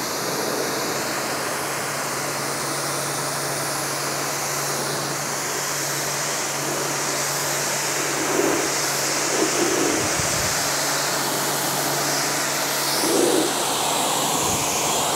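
Pressure washer jet rinsing a citrus pre-wash off a car's door panel: a steady hiss of spraying water over a low hum. It starts and cuts off suddenly as the trigger is pulled and released.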